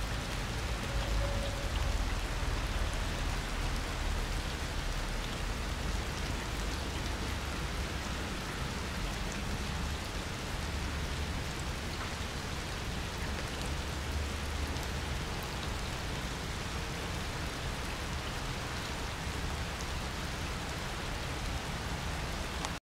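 Steady rain falling on wet concrete: an even hiss of many small drop impacts, with a low rumble underneath.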